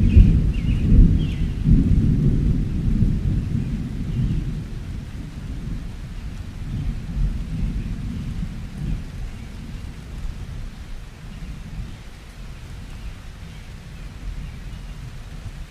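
Rolling thunder: a loud low rumble that swells in waves for the first few seconds, then dies away into a steady, fainter rumble.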